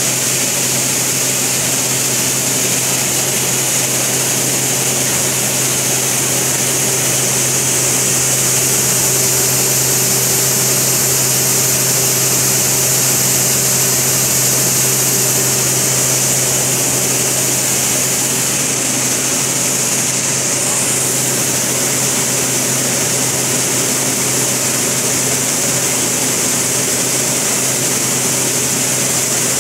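Five-fan gravity separator running: the steady hum of its fans and drive with an even rushing noise, unchanging throughout.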